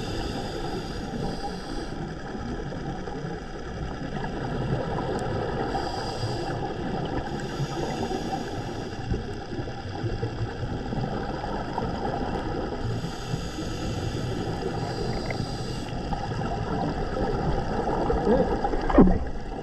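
Underwater reef noise picked up through a diving camera's housing: a steady crackling hiss, with surges of bubbling every few seconds from the diver's breathing through the scuba regulator. A short louder sound comes near the end.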